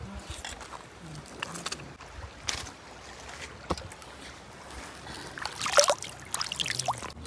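Water splashing and sloshing in a shallow, pebbly stream, in a few separate splashes, the loudest about six seconds in.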